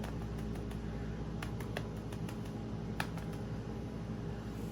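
Scattered light clicks and taps of kitchen utensils and containers being handled while preparing a bowl of chicken nugget mixture, one sharper click about three seconds in, over a steady low hum.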